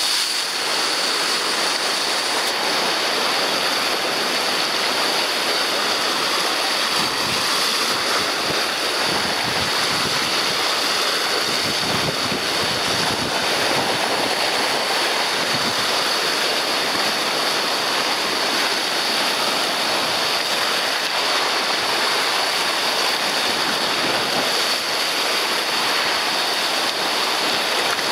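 Rough sea churning, a steady rushing of waves and surf that does not let up.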